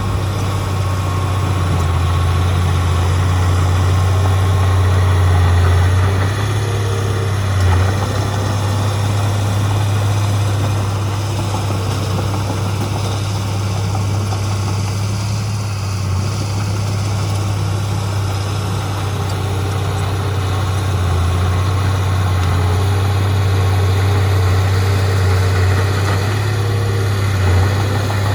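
Heavy diesel engine running with a steady low drone, with two brief louder bumps, one about eight seconds in and one near the end.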